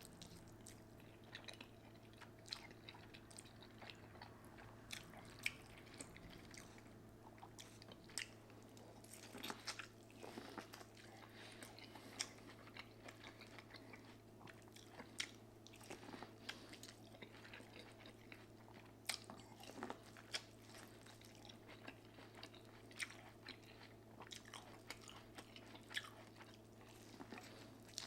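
Close-miked mouth sounds of a person eating: soft, irregular chewing smacks and bites, a click or crunch every second or so, over a faint steady hum.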